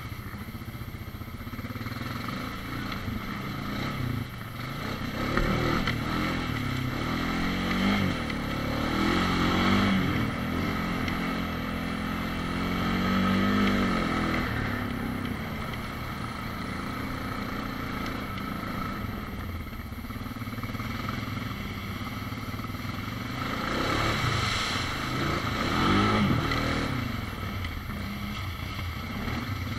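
ATV engine running under load on a trail ride, its pitch rising and falling with the throttle in several surges, loudest near the middle and again near the end.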